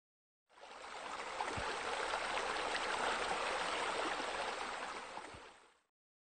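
Running, splashing water of pool water features: bubbler jets and spillover water, fading in, holding steady, then fading out near the end.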